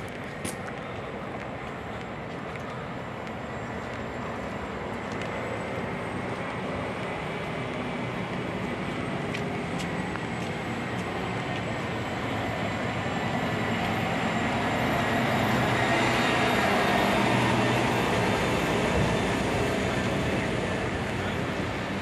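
Street traffic noise: a continuous rumble of passing vehicles that builds slowly to its loudest about two-thirds of the way through, then eases off.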